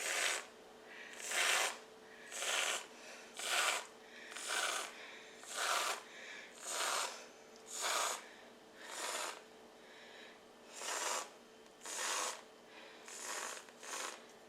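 Aerosol can of whipped topping sprayed in short hissing bursts, about one a second, a dozen or so in a row, as dollops are put down one after another.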